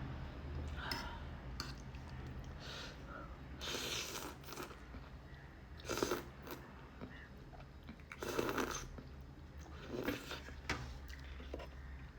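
Close-up eating sounds: someone chewing and crunching a mouthful of noodles with corn, in separate bursts every second or two.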